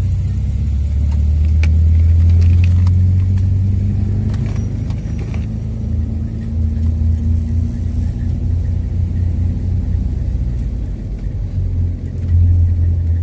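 Car engine and road noise heard from inside the cabin while driving: a steady low rumble, with a few faint clicks in the first half.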